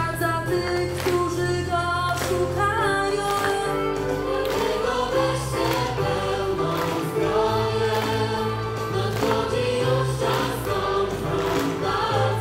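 Choir singing an upbeat Christian worship song over a band, with bass and drums keeping a steady beat.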